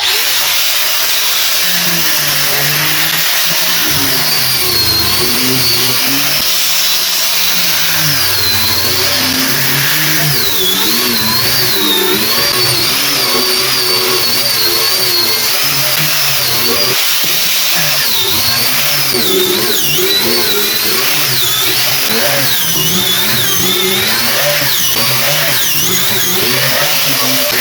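Electric power sander running on a laminated wood cutting board, its motor whine wavering up and down in pitch as the load changes.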